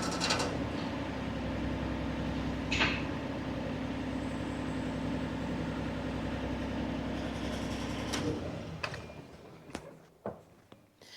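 Deere 35G mini excavator's diesel engine idling steadily, then shut down about eight seconds in and running down to a stop. A brief sharp high sound comes near three seconds in, and a few clicks and knocks follow the shutdown.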